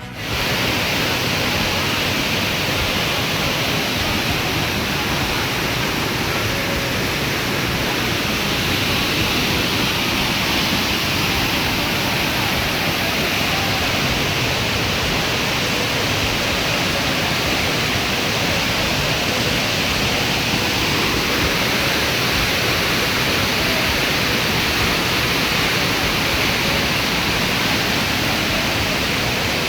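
Steady, loud rush of a waterfall carrying a lot of water.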